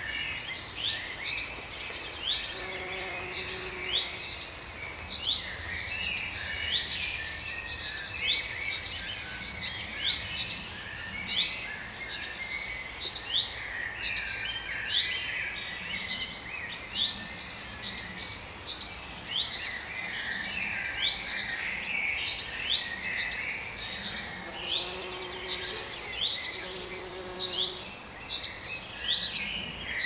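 Dense outdoor chorus of birdsong: many birds giving short, quick chirps and trills over and over, over a steady background hiss.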